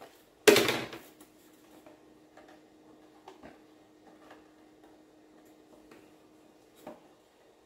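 A plastic clack and rattle about half a second in as the new air filter and its frame are pushed into the plastic air cleaner housing of a riding mower's Kohler Courage engine. A few faint clicks and taps follow as the filter is seated, over a faint steady hum.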